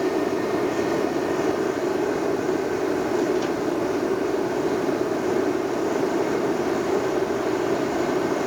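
Gas forge burner running with a steady rushing noise as it fires the forge.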